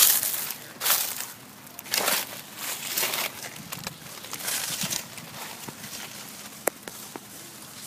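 Dry crunching and rustling in short bursts about once a second, fading near the end, with a couple of sharp clicks.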